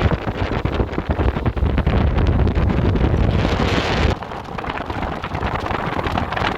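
Wind buffeting the microphone: loud, gusty rumbling noise, which drops abruptly about four seconds in and goes on at a lower level.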